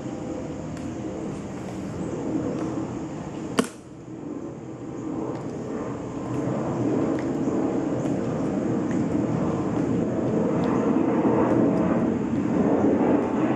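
Aircraft passing overhead, its steady rumble growing louder through the second half. A single sharp click sounds about three and a half seconds in.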